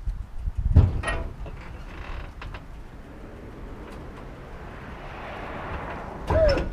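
Hydraulic suspension of a 1963 Chevrolet Impala lowrider letting the car down, its body creaking as it settles. There is a knock about a second in, then short crackles and a faint steady noise, and a loud creak that slides in pitch near the end.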